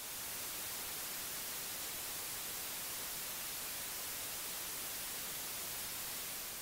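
Steady, even hiss like white noise, brightest in the high end, with no rhythm or change in pitch.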